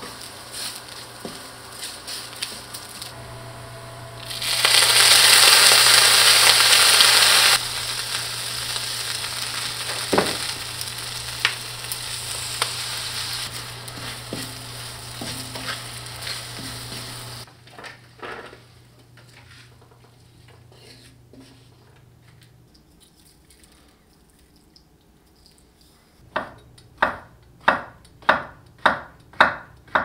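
Food sizzling in a hot pan: a loud burst of sizzling about four seconds in that lasts about three seconds, then dies down gradually over the next ten, over a steady low hum. Near the end come evenly spaced sharp knocks, about two a second.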